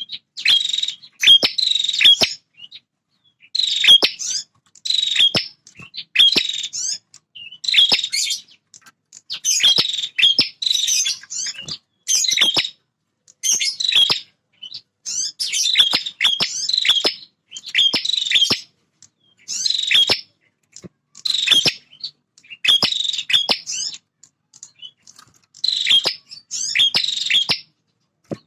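Male prinia (prenjak) singing: short, high chattering phrases repeated about once a second with brief pauses, many of them starting with a sharp click.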